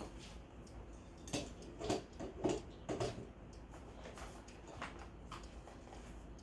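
Light handling knocks and clicks, four short ones spaced about half a second apart over the first three seconds, then quieter, as the RC car's charging cable is plugged into a wall adapter.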